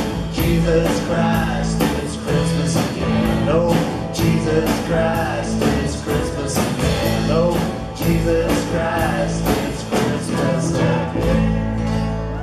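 Live band playing a country-rock song: strummed acoustic guitars and electric guitar over a drum kit keeping a steady beat, with voices singing.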